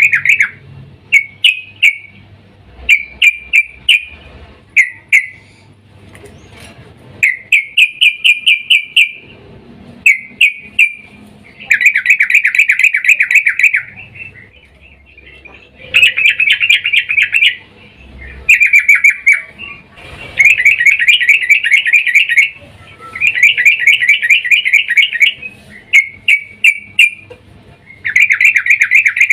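Yellow-vented bulbul (trucukan) calling in repeated bursts of rapid, chattering notes, each burst a second or two long with short pauses between. The uploader presents it as a female calling to a male.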